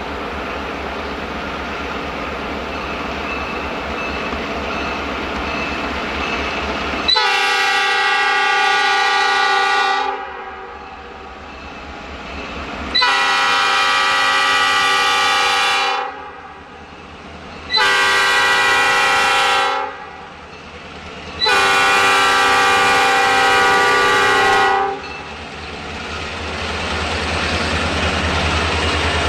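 Lead diesel locomotive of a freight train, an EMD GP38, sounding its horn in the grade-crossing pattern: two long blasts, a short one and a final long one, signalling its approach to a road crossing. Under and after the horn, the locomotives' diesel engines run with a low rumble that grows louder near the end as the train draws close.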